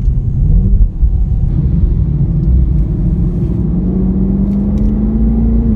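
Chevy SS's LS3 6.2-litre V8 engine pulling under way with a low rumble; its note rises, drops back briefly about a second in, then climbs slowly and steadily.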